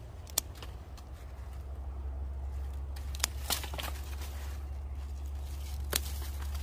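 Scissors snipping okra pods off the plant: a few short sharp clicks, about half a second in, twice in quick succession around three and a half seconds in, and once near the end. A steady low rumble runs underneath.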